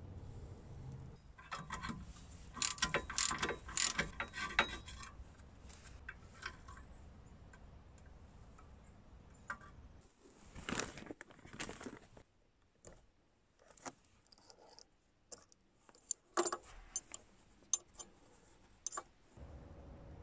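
Metallic clicking and rattling from hand work on a Toyota RAV4's parking brake lever and cable, in three bursts: a long run of clicks early on, a short one near the middle and another near the end.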